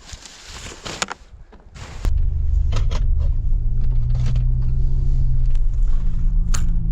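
A few clicks and knocks, then about two seconds in a car engine comes in suddenly and runs with a steady low rumble.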